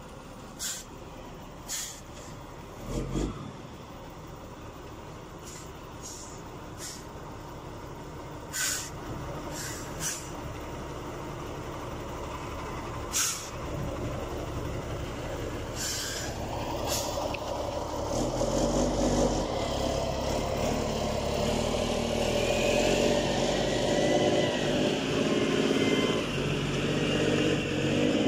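Heavy diesel cargo truck's engine running at low speed as it works through mud, getting louder as it comes close about two-thirds of the way in. Short sharp air hisses from its brakes, about eight of them, come in the first half.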